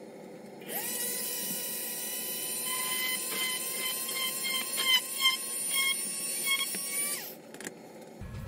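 Small electric drill spinning up to a high, steady whine and boring a small hole for a wire, its pitch wavering a little as the bit bites. It winds down about seven seconds in.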